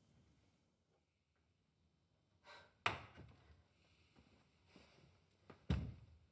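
Quiet room tone, then a short soft breath and two thuds on a wooden pallet floor about three seconds apart, the second heavier and lower.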